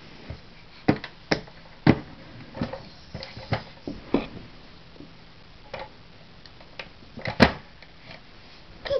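A baby's hands slapping and tapping on a plastic push-button toy and the hard board beneath it: about ten irregular knocks, spaced half a second to a second and a half apart, the loudest about seven and a half seconds in.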